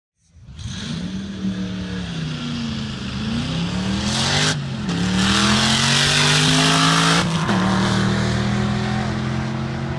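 Chevrolet Corvette C7 Z06's supercharged 6.2-litre V8 accelerating hard down a drag strip, its pitch climbing through the gears, with upshifts about four and a half and seven seconds in.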